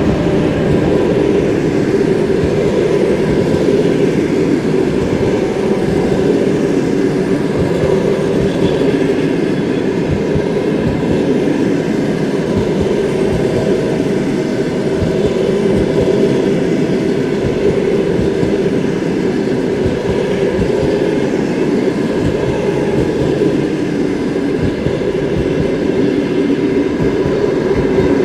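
Passenger train hauled by a ChS7 electric locomotive passing close by, its carriages rolling past steadily with a continuous rumble and rapid clickety-clack of wheels over the rail joints.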